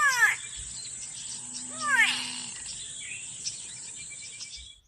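A bird calling twice, about two seconds apart, each a short call that rises slightly and then falls in pitch, over a steady high-pitched drone.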